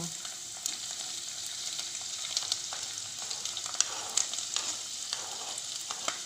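Diced onion frying in hot oil in a nonstick wok: a steady sizzling hiss with sharp crackling pops scattered through it.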